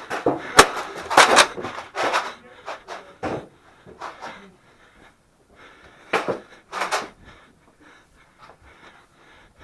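A person breathing hard in short, irregular pants, with a sharp click about half a second in.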